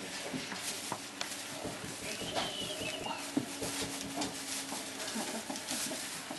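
Young bearded collie puppies squeaking and whining: a high squeaky whimper that rises and falls about two seconds in, then a low drawn-out whine, over steady rustling and scratching on newspaper bedding.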